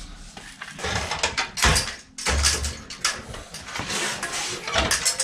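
Irregular rustling and clattering of things being handled close by, with several sharp knocks, the strongest about a second and a half in and again near the end.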